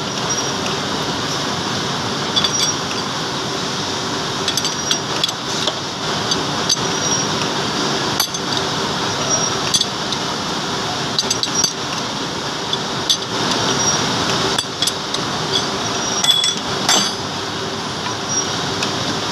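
Metal lathe turning a steel bar: a steady running noise with a low hum, broken by frequent, irregular sharp clinks of metal chips coming off the cut.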